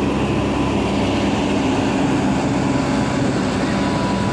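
Diesel engine of a Mercedes-Benz intercity coach running steadily as the coach drives slowly past, a low, even drone.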